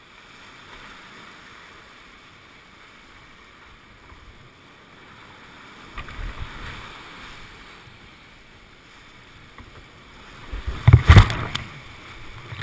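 Whitewater rapids rushing in a steady hiss. There is a thump about six seconds in, and about eleven seconds in a run of loud, heavy splashes as a whitewater kayak plunges through breaking water.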